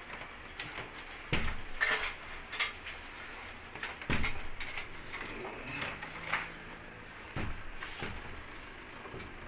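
Plastic casing of a split-type aircon indoor unit knocking and clicking against its metal wall mounting plate as it is pushed and seated: a string of separate sharp knocks and clatters, about six over the stretch.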